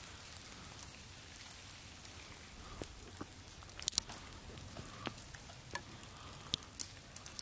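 Melting snow dripping: scattered, irregular drips and taps over a faint steady hiss, with a few close together about four seconds in.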